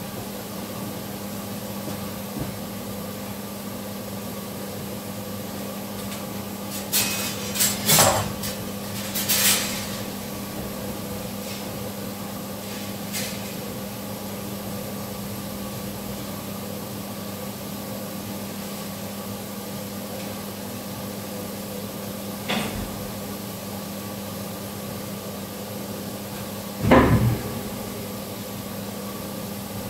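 Knocks and clatter of things being handled, with a cluster of sharp knocks and bangs in the middle and one loud thump near the end, over a steady mechanical hum.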